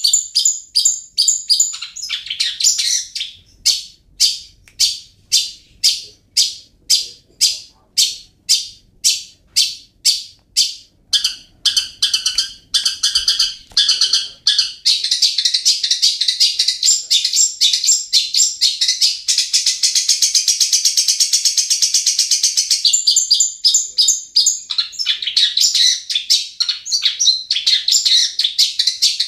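Long-tailed shrike (cendet) singing: a run of separate sharp high notes repeated about twice a second, then from about halfway a dense, continuous high chatter of rapid notes.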